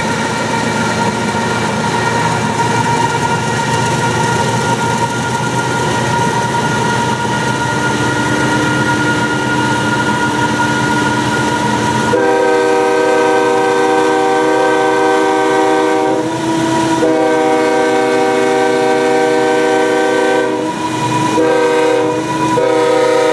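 Freight train's diesel locomotives running at speed alongside, then, about halfway through, a locomotive's multi-tone air horn sounds: two long blasts, a short one, and a long one that carries on, the standard grade-crossing signal.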